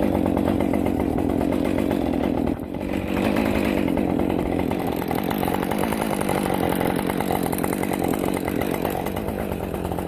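Two-stroke chainsaw engine running steadily, with a brief dip about two and a half seconds in.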